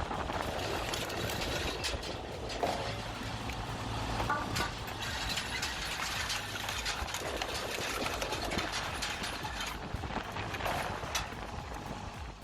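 Homemade firewood processor running: a steady engine and hydraulic drone with frequent knocks and clatter of the machinery and wood.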